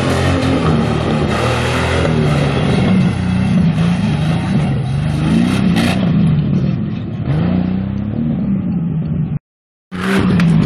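Off-road buggy engine revving hard, its pitch rising and falling repeatedly with the throttle. The sound drops out completely for about half a second near the end, then the engine is heard again.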